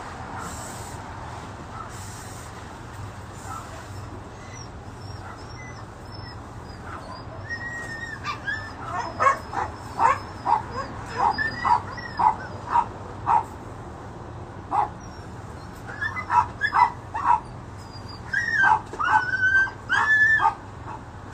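A dog yelping and whimpering in a quick run of short, high-pitched calls starting about eight seconds in, with longer whines near the end.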